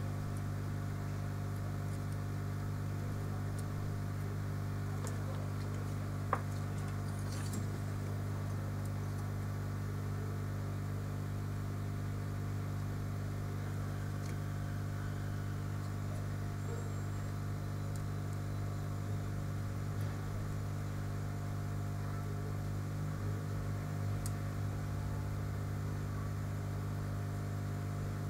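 Steady low electrical hum with a faint whir, and one sharp click about six seconds in.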